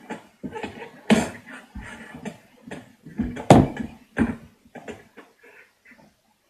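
Slime being squeezed and stretched in the hands: irregular wet pops and clicks, the loudest about a second in and again about three and a half seconds in, thinning out near the end.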